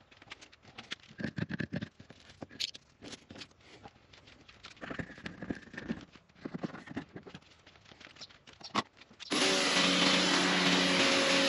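Irregular short knocks and clatters, then about nine seconds in the Stanley SXPW22E's electric motor starts suddenly and runs steadily, a loud hum under the rushing hiss of its high-pressure jet spraying against a garage door.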